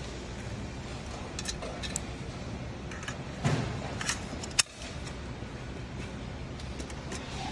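Scattered clicks and a knock from handling the parts of a desktop computer during a hard drive swap, over a steady low hum. A louder knock comes about three and a half seconds in, and a sharp click a second later.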